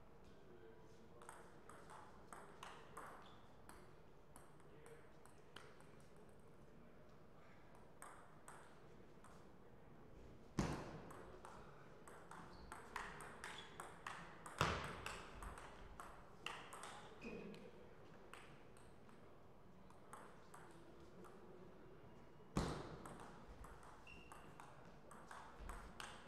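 Table tennis rallies: the ball clicking off the rackets and the table in quick irregular runs, with three louder thumps at intervals.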